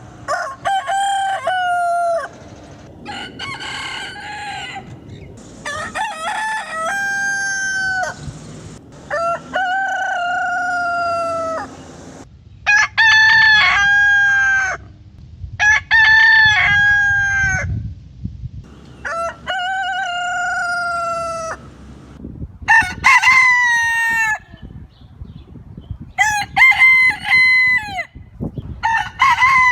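Roosters crowing one after another, about nine full cock-a-doodle-doo crows of roughly two seconds each, with short gaps between them.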